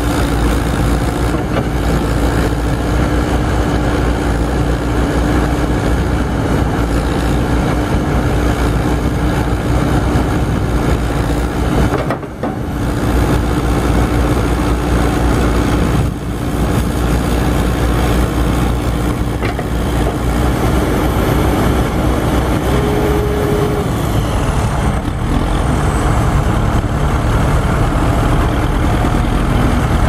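Four-cylinder diesel engine of a 1995 JCB 214S backhoe loader running steadily while the machine's outriggers and backhoe are worked and it moves off, with a brief higher whine about two thirds of the way through.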